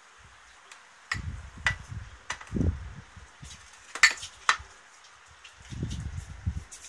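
Handling noise of a ceramic bowl of leafy greens: a handful of sharp clicks and light clinks, the loudest about four seconds in, among low thumps and bumps.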